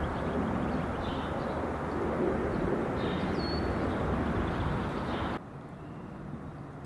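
Steady outdoor background noise with a few faint, high bird chirps; it drops abruptly to a quieter hiss about five seconds in.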